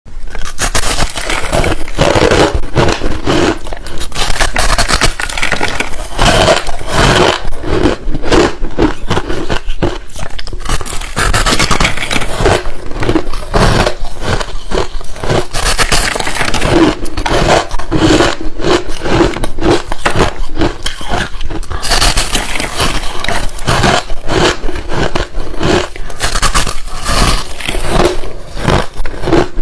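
A person biting and crunching ice, close to the microphone: a dense run of sharp, cracking crunches that starts abruptly and goes on without a break.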